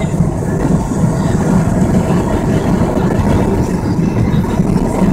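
Steady engine drone and road noise inside a car moving at highway speed.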